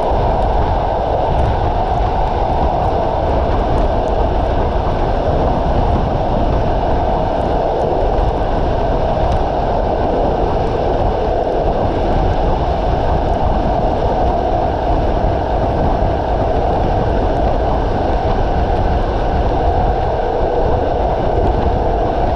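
Passenger train carriage running steadily at speed, heard from its window: a continuous rush of wheels on rail and passing air, in heavy rain.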